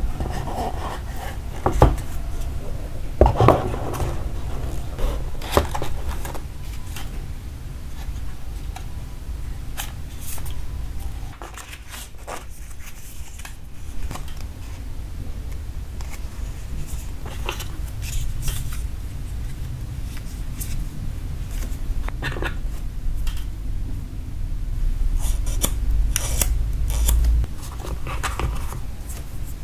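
Cardboard smart-watch box being handled and opened by hand: scattered clicks, taps, scrapes and rustles of packaging, over a low handling rumble.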